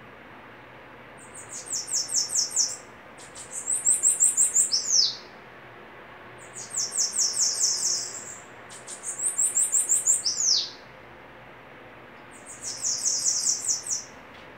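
Bananaquit (sibite) singing: five short, high, rapid trills, each lasting about one and a half to two seconds with pauses of a second or so between them, some ending in a falling slurred note.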